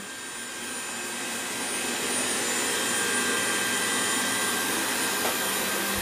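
MOVA Z500 robot vacuum cleaner running: a steady whirring hiss with a faint high whine, growing slightly louder over the first two seconds.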